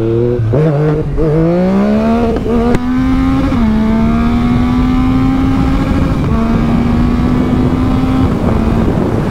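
Motorcycle engine pulling away under throttle: the revs climb, drop back with a gear change, climb again and drop with a second shift, then hold steady at cruising speed, over a steady rushing noise.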